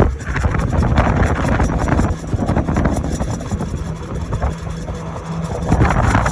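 Denago golf cart driving along, a steady low rumble of the moving cart.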